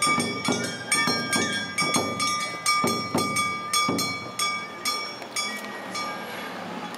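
Awa Odori festival music: drums beating at about three strokes a second under a high, held melodic tone, coming to an end about five to six seconds in.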